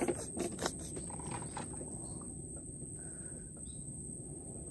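Mangrove river ambience: a steady high-pitched insect whine over a low rumble, with a few faint bird chirps. A quick run of sharp knocks or clicks fills the first second.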